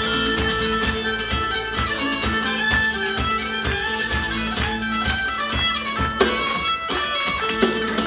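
A Scottish traditional folk band playing a lively tune led by bagpipes, the melody moving over a steady held drone, with drums keeping a regular beat.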